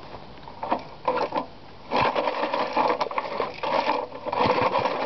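Recoil starter of a 5 hp Briggs & Stratton engine pulled several times in short, rattling bursts of about a second each as the engine turns over without catching. The owner thinks it needs a little choke in the cold.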